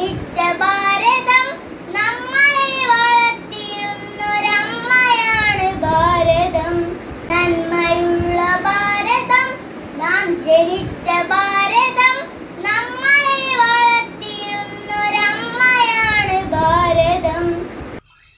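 A young boy singing a patriotic song solo, with held and gliding notes, falling silent shortly before the end.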